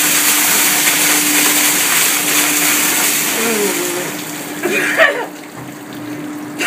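Bucket of ice water poured over a man's head, a heavy rushing splash onto him and the deck that tails off after about four seconds. Short voice cries follow, over a steady hum.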